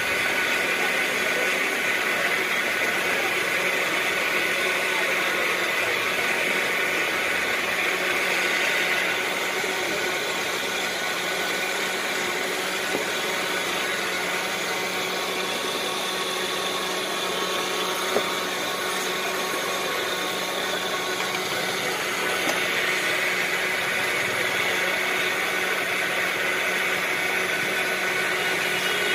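Electric countertop blender motor running steadily, blending mango juice.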